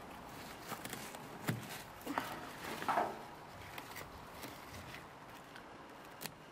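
Scissors snipping through potato stems several times, cutting the plant's top growth off at the soil, amid rustling leaves.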